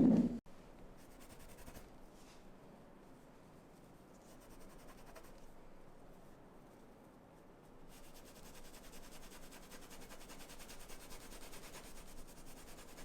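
Faint scratchy strokes of a paintbrush working over a painting surface, becoming denser and steadier about eight seconds in.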